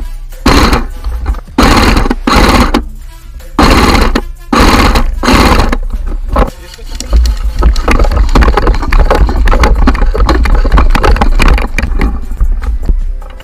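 An airsoft rifle fired in about seven short bursts over the first six seconds, then the rustle and knocking of running and gear rattle as the shooter moves and goes prone in grass.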